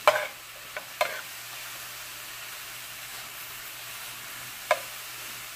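Onions, bell peppers and mushrooms sizzling in a skillet as they are stirred with a plastic spatula, which clacks and scrapes against the pan a few times: at the start, about a second in, and near the end.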